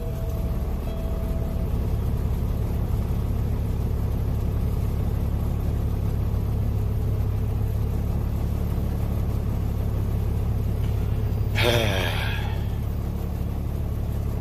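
Semi truck's diesel engine idling steadily just after starting, heard from inside the cab. Near the end there is a short, louder sound with wavering higher pitches.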